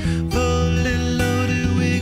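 Background song with acoustic guitar.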